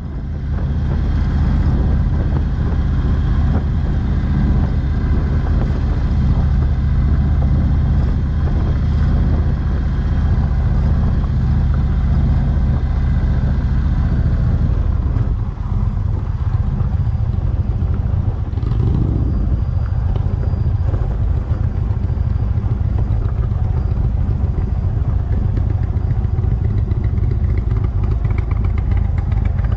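Motorcycle engine running at a steady cruising pace, with wind and road noise.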